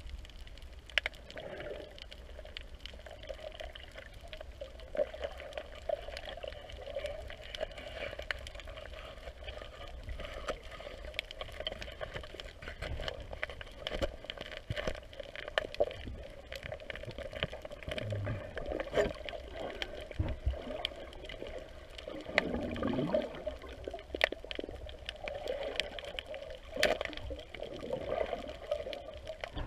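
Underwater ambience picked up by a submerged camera: a muffled, steady water hiss with sharp clicks and knocks scattered throughout.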